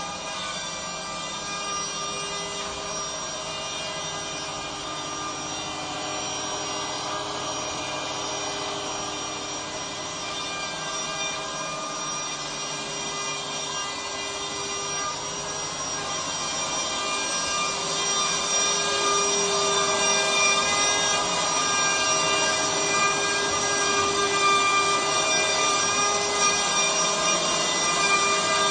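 Small CNC router's spindle running steadily with a whine, working a wooden board, getting louder after about 18 seconds.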